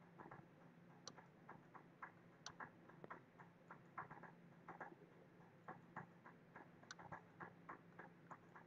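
Faint, irregular clicking of a computer mouse, about three clicks a second, over a low steady hum.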